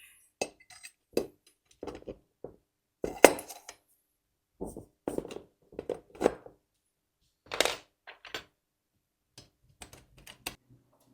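Small screws and metal parts of a cue rack being handled and fitted by hand during assembly: irregular clicks, clinks and knocks, the sharpest about three seconds in and again near eight seconds in.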